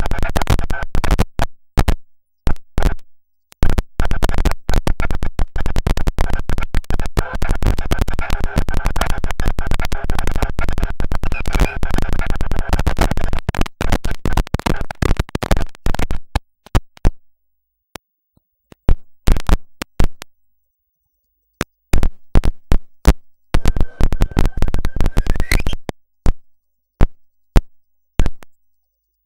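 Loud live electronic music: noisy, stuttering synthesizer sound chopped into rapid fragments over a held drone. About halfway through it breaks into scattered short bursts with gaps of dead silence, and a held high tone that bends upward near the end.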